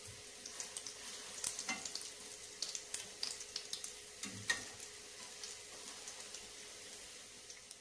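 Gram-flour-battered potato bondas deep-frying in hot oil in a steel kadai: a steady sizzle with many small crackling pops. A slotted spoon turns them, with a couple of sharper clicks.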